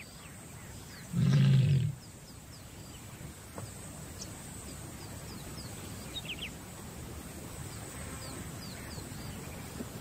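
A lioness in heat gives a single low, loud call about a second in, lasting just under a second; it is the call of a lone female ready to mate, drawing males to her.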